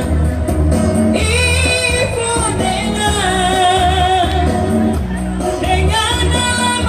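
Indonesian pop ballad sung with band accompaniment: a held, wavering vocal line over a steady, pulsing bass.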